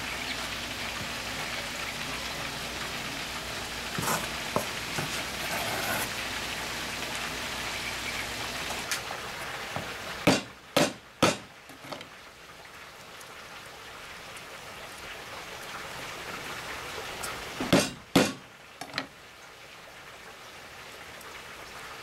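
A heavy cleaver knocking sharply on a wooden cutting board in two quick groups of three, about eight seconds apart, as garlic cloves are cut and crushed. Before them a steady hiss, which drops away about nine seconds in.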